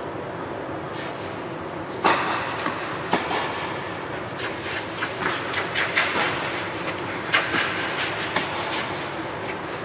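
Tennis rally on a clay court: a sharp racket strike on the ball about two seconds in, then a run of quick shoe scuffs and crunches on the clay with more ball hits, over steady background noise.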